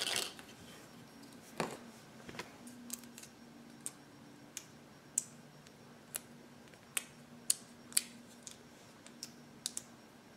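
Fingers handling a small plastic cup of clear slime: scattered sharp clicks and taps of fingernails and plastic, with a louder click right at the start.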